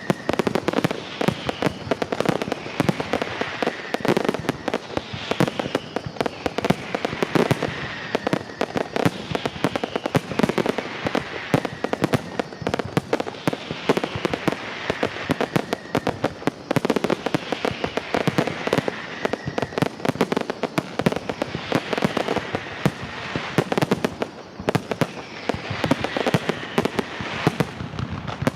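Fireworks display: a dense, continuous string of bangs and crackles, with faint falling whistles recurring about every two seconds.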